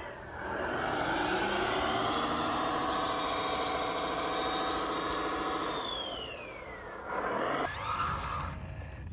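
Whine of a radio-controlled construction model's electric motor, rising in pitch as it speeds up, holding steady, then falling away about seven seconds in. A brief, rougher noise follows.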